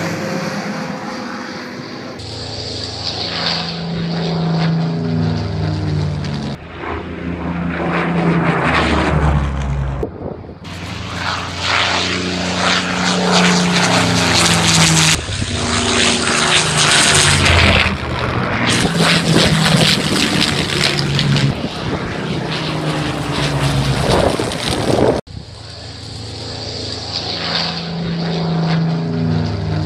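Supermarine Spitfires' Rolls-Royce Merlin V12 engines droning loudly as they fly overhead, the pitch sliding down as each one passes. The sound breaks off abruptly and resumes at different loudness about 2, 10 and 25 seconds in.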